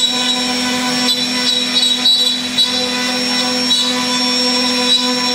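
CNC router spindle running with its bit carving a floral relief into a wooden border: a steady tone with several higher held tones over the hiss of cutting, with a few brief louder moments as the bit bites into the wood.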